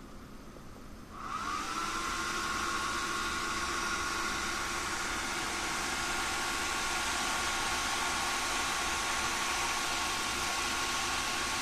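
Graphics card fans spinning up to full speed about a second in, joining two Thermaltake Riing 12 case fans already at full speed: a steady rush of air with a high whine.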